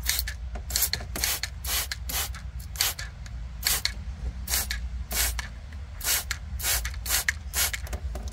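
Hand trigger spray bottle squirting soapy water in quick repeated pumps, about two short hissing sprays a second, onto air-suspension line connections during a leak test.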